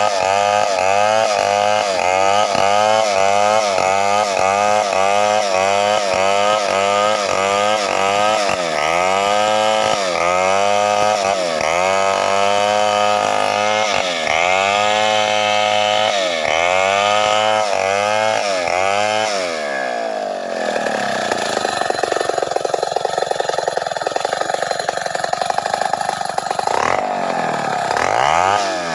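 Two-stroke chainsaw ripping sengon wood lengthwise, its engine pitch dipping and recovering again and again as it labours in the cut. About twenty seconds in, the engine climbs to a higher, steadier pitch, then dips once more near the end.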